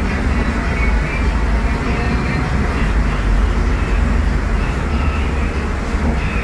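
Scania DC09 five-cylinder diesel of a Scania K250UB midibus running steadily while the bus drives, heard inside the passenger cabin as a low engine drone mixed with road rumble.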